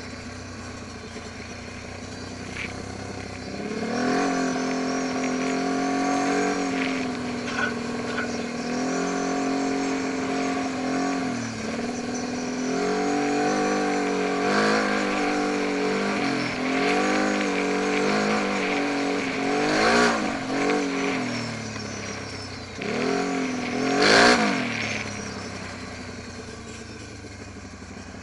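Quad bike (ATV) engine heard up close while riding, revving up and down with the throttle again and again. It runs lower and quieter at the start, revs hard once near the end, then settles back to a lower, quieter run.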